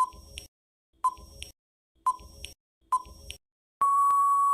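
Countdown timer sound effect: short beeps once a second, four in a row, then one long steady beep a little before the end, marking time up.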